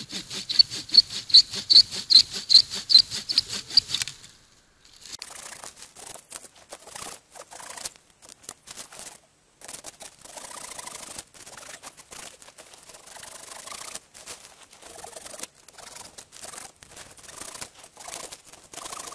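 Hand saw cutting wood in quick, even strokes, about three a second, for the first four seconds. After that comes quieter, irregular scraping and rustling of wood and branches being handled.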